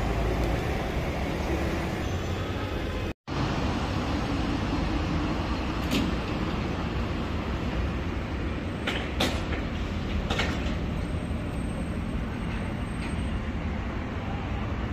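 Lamborghini Urus twin-turbo V8 running at low speed, a steady low rumble without revving. The sound drops out completely for a moment about three seconds in, and a few short sharp clicks come later.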